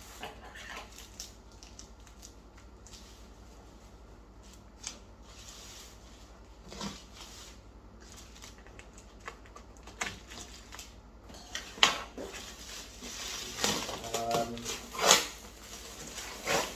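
Hands handling and opening a shipping package: scattered rustling, scraping and clicking of packing material, sparse at first and busier, with sharper snaps, in the last several seconds.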